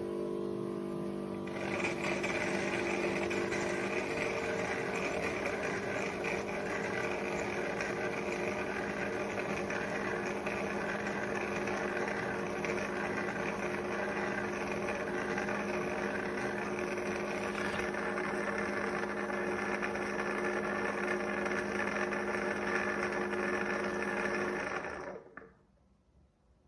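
MOVA S10 Plus robot vacuum in its dock, running its mop-pad washing cycle: a steady motor whir with a few steady tones. It steps up in loudness about two seconds in and stops suddenly near the end, when the washing task is complete.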